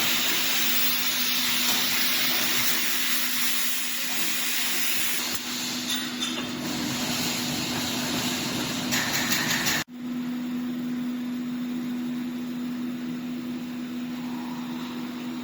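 Fence mesh welding machine running, a steady hum under a hissing noise. About ten seconds in the sound cuts out for an instant, then the hum carries on with the hissing much reduced.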